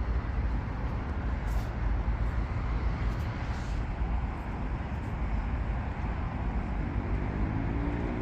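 Steady road traffic noise: a constant low rumble with no distinct events.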